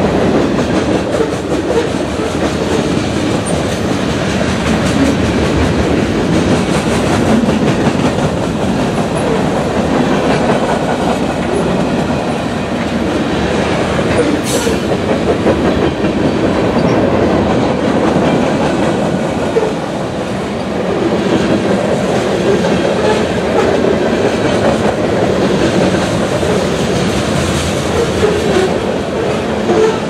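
Freight train's covered hopper and tank cars rolling past at speed: a steady rumble and rattle of steel wheels on the rails, with clickety-clack over the rail joints.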